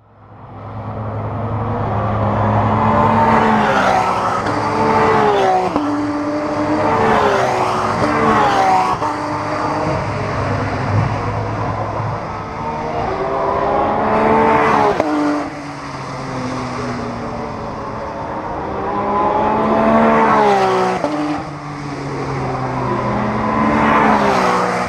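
Race cars accelerating past on the main straight, one after another, their engines revving up and shifting up through the gears. It fades in over the first second.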